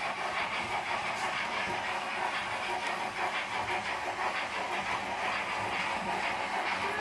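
H0-scale model BR 44 steam locomotives running with their steam sound: a steady hiss with faint irregular clicking of wheels on the track.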